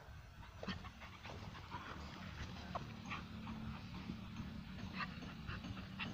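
Labrador dog panting while sparring with a rooster, with short scattered scuffing sounds over a steady low rumble.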